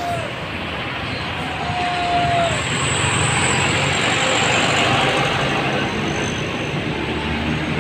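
Large bus driving by, a steady rush of engine and road noise that swells to its loudest about halfway through. Two short single-note horn blasts sound, one at the very start and one about two seconds in.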